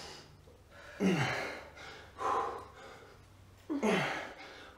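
A person's forceful grunting exhales of effort, three of them a little over a second apart, each dropping in pitch, in time with the reps of a set of bicep curls.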